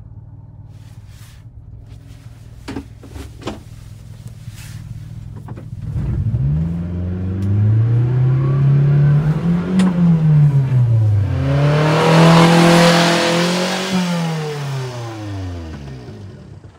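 Subaru Sambar kei truck's small four-cylinder engine pulling away and driving past. After a low rumble, the engine note climbs through a gear from about six seconds in and drops at a gear change about ten seconds in. It climbs again as the truck passes close, with engine and tyre noise loudest around twelve to thirteen seconds, then falls in pitch and fades as it goes by.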